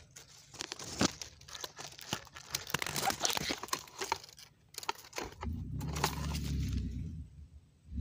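Dry twigs and dead leaves crackling and snapping in quick, irregular clicks as the brush is pushed through. About five seconds in, this gives way to a low rumble lasting a second and a half.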